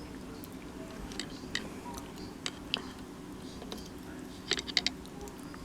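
Light clicks and taps of small parts being handled: a battery's nickel tab strip being worked through a hole in a Braun Oral-B toothbrush's plastic inner frame. There is a quick cluster of clicks about four and a half seconds in, over a steady low hum.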